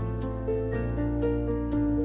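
Soft instrumental background music, with gentle sustained notes that change about every half second.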